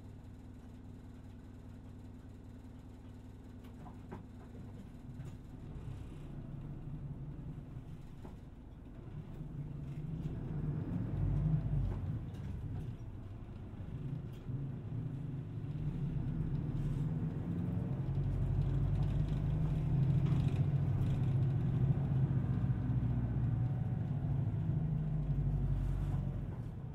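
Small city bus running, heard from inside the passenger cabin. It starts as a steady low hum, then the engine and road noise build as the bus gets under way, ease off briefly, and build again for a long stretch before falling away near the end.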